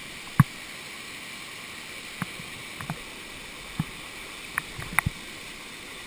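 Steady rush of a waterfall, broken by several sharp knocks, the loudest about half a second in and a quick cluster near the end.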